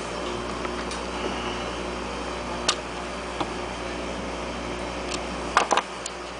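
A steady background hum with a few sharp clicks of tools being handled on a workbench during battery soldering. One click comes about two and a half seconds in, and three come in quick succession near the end.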